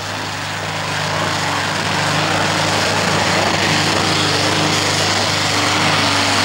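Modified pulling tractor running flat out under load as it drags the brake sled down the track: a loud, dense engine noise that builds over the first second and then holds steady.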